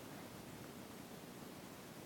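Faint steady hiss of background noise, with no distinct sound in it.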